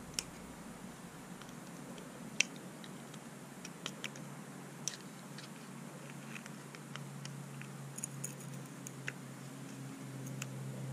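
Faint, irregular metal ticks and scrapes of a steel pick working inside a motorcycle brake caliper's piston bore, picking at corrosion, over a low steady hum.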